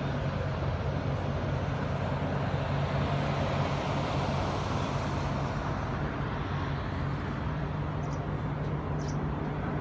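Steady city traffic noise with a constant low hum underneath.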